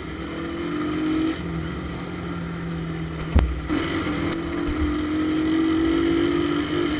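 Shineray motorcycle engine running loud through an exhaust pipe with a hole drilled in it, so it sounds rough and louder than stock. Its pitch rises, drops about a second in, then climbs steadily again as it accelerates, with one sharp knock about midway.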